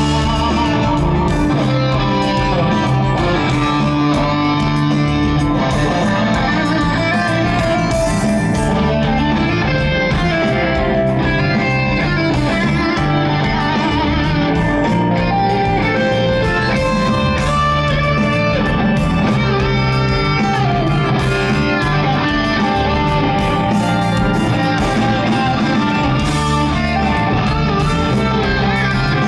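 Live progressive rock band playing an instrumental passage, guitar to the fore over bass and a steady drum beat.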